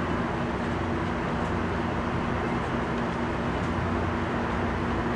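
MARC commuter train standing at the platform with its equipment running: a steady hum with a constant low drone over an even hiss.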